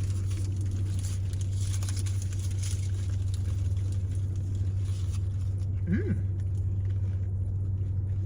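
A steady low hum with light rustling of fries packaging in the first few seconds, and a short hummed 'mm' about six seconds in.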